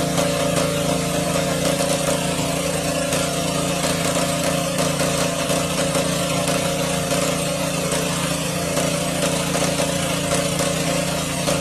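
A small engine running steadily at an even, unchanging speed.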